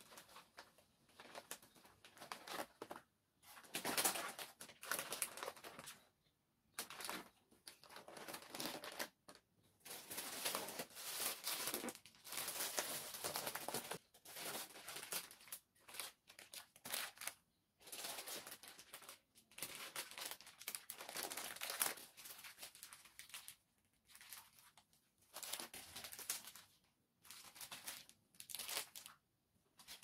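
Grocery bags and packaging crinkling as groceries are handled, in irregular rustling bursts a second or two long with short pauses between them.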